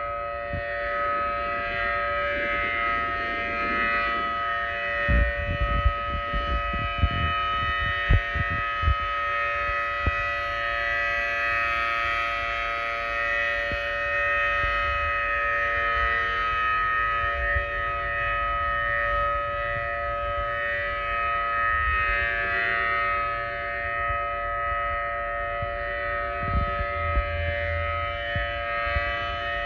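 Outdoor civil defense warning siren holding a steady tone made of several pitches together, with no rise or fall. There are low thumps and rumbles between about five and nine seconds in and again near the end.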